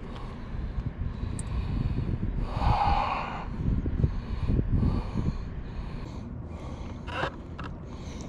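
Wind rumbling on the microphone over open water, with a short breath-like rush of air about three seconds in and a small click near the end.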